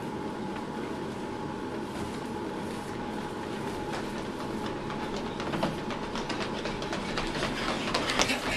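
Running footsteps of sprinters on a hard tiled floor, faint at first, then growing louder and quicker as the runners near, loudest as one passes close by near the end, over a steady background hum.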